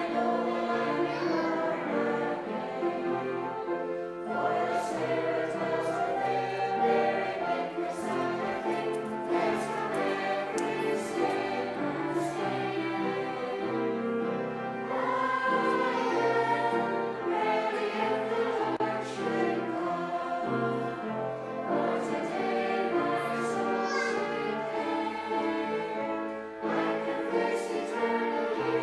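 A Sunday school children's choir singing together in steady, continuous song.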